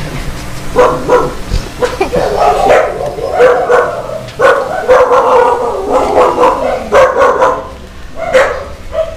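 Dogs barking and yelping over and over, a quick run of barks beginning about a second in, some of them drawn out into longer yelps.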